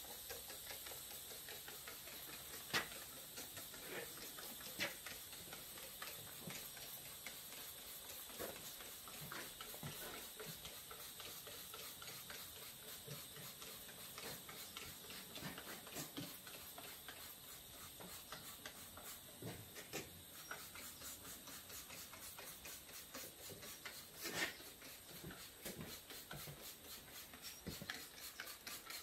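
Hand trigger spray bottle squirting soapy water round a steel tractor wheel rim: faint short spritzes now and then, with small clicks and rustles between.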